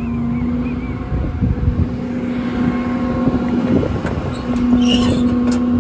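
Ram 5500 service truck's 6.7 Cummins diesel engine running with a steady hum that drops back in the middle and returns stronger near the end, with a few sharp clicks over it.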